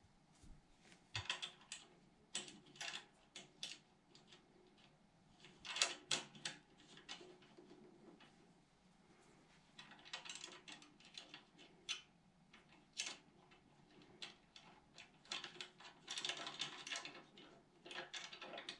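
Faint, scattered clicks and rattles of small metal hardware, nuts, bolts and a bracket, being fitted by hand onto a mower's steel handle tube, coming in several short clusters.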